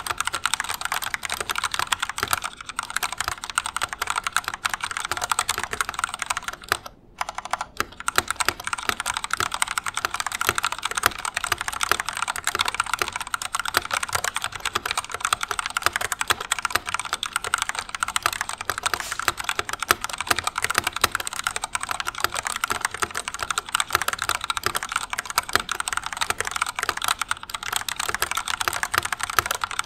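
Steady, fast typing on an Epomaker EP84 75% mechanical keyboard fitted with Gateron Black linear switches and stock, unmodded stabilizers: a continuous patter of key strokes, with a short pause about seven seconds in.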